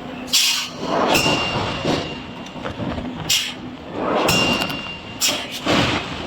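Heavy industrial machinery in a forging shop working in a repeating cycle about every three seconds: a short sharp hiss, then a longer swell of rumbling noise, with a brief thin tone now and then.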